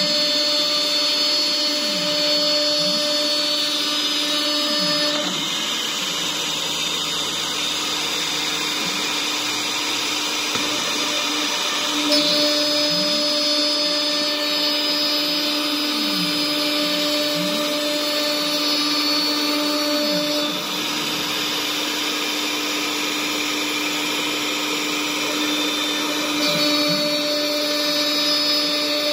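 CNC router spindle running and routing circles out of 18 mm particle board, a steady whine over the noise of the bit chewing through the board. The whine is strongest in three spells, about the first five seconds, from about twelve to twenty seconds, and again near the end, with repeated low rising-and-falling sweeps from the machine's axis drives as the head moves.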